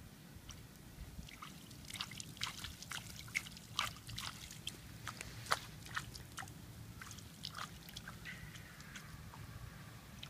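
Small splashes and drips of water as a toddler slaps and stirs a shallow rain puddle, a quick run of splashes in the middle.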